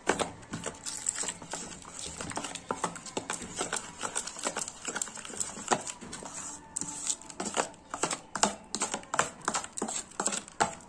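Steel spoon clinking and tapping against a stainless steel bowl as it beats a thick gram-flour and rice-flour batter smooth: a steady run of quick, irregular clicks.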